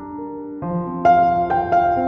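Background instrumental music: slow, held notes, getting louder about half a second in as new notes enter.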